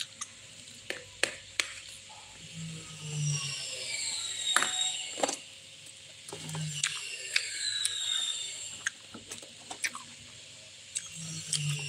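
Metal spoon clicking and scraping against a plastic plate while someone eats, in scattered sharp clicks. A high whistle that falls in pitch repeats every few seconds behind it.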